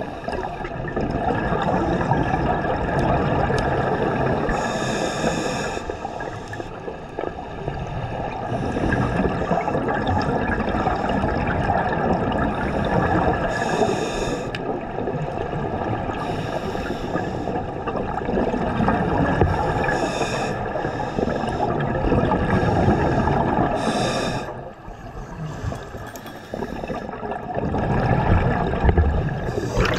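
Scuba breathing underwater: exhaled bubbles from a regulator rushing and gurgling, in breaths repeating every few seconds.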